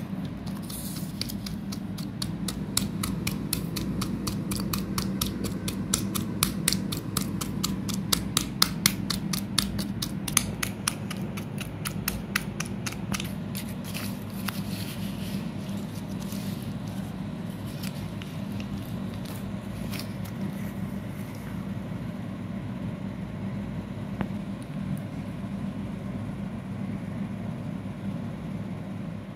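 Plastic spoon stirring and scraping wet crushed slate pencil in a stone mortar, with quick crunchy scrapes several a second that thin out after about halfway.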